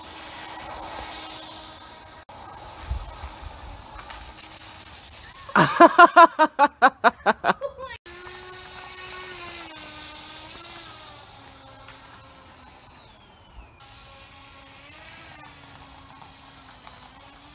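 Small 300-class brushless motor spinning a propeller on a LEGO Technic RC car, its whine rising and falling with the throttle. About six seconds in comes the loudest part, a rapid stuttering run of about ten pulses over two seconds.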